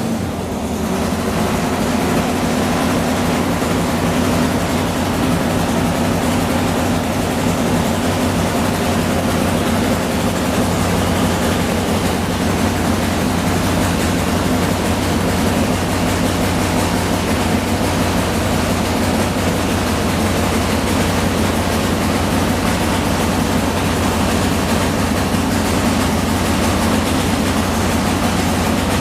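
A 2,200 cc drag-racing motorcycle engine idling steadily and loudly, with a rapid low pulsing beat. It comes up to full level within the first second.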